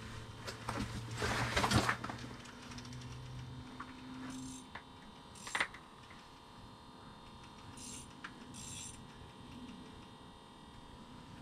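Small metallic clicks and rattles of an ice-fishing rod and reel as a yellow perch is reeled up from deep water. The clicks are busiest in the first two seconds, then come only now and then, over a low hum that fades out partway through.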